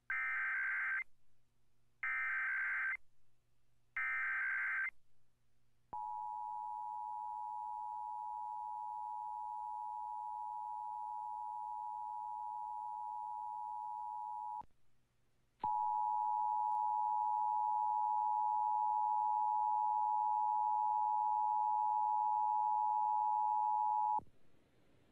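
Emergency Alert System test: three one-second bursts of SAME digital header data, a buzzing data tone, two seconds apart, then the EAS two-tone attention signal, a steady dual tone. The tone drops out for about a second partway through and comes back louder until just before the end.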